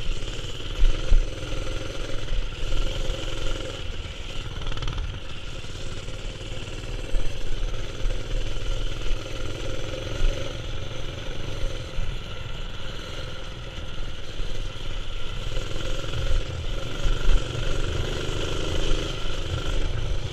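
Brakeless mini-bike coasting down a rocky dirt trail with its engine's fuel shut off: the frame and parts rattle and jolt continuously over the rocks, with wind and tyre rumble.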